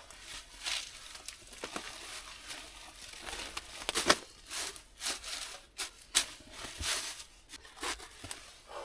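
Irregular rustling and crunching: a run of short scrapes and crinkles, the loudest about four seconds in.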